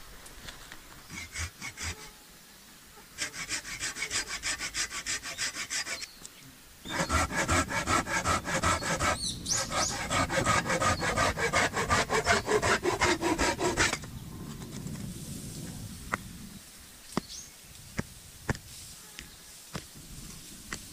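Saw cutting through wood in quick, even back-and-forth strokes: a short bout, a brief pause, then a longer, louder bout that stops suddenly about two-thirds of the way through. A few sharp knocks follow.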